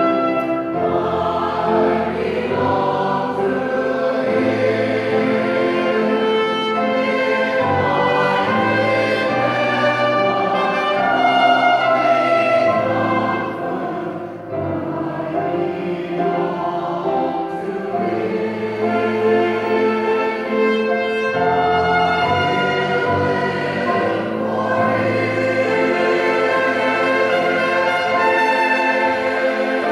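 A church choir singing with a trumpet and accompaniment, sustained chords over a moving bass line, with a short lull about halfway through.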